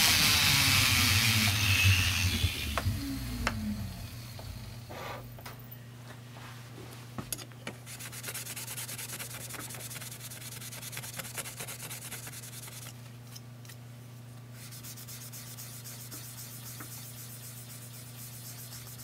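Flex shaft handpiece grinding on a brass sheet, its motor winding down with a falling pitch over the first few seconds. Then hand sanding with an abrasive pad, rubbing strokes across the brass to bring the rivet heads flush with the surface.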